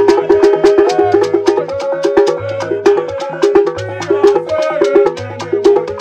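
Igbo ogene music: a metal ogene gong struck with a stick in a steady rhythm over a small hand drum and gourd shaker, with chanted singing.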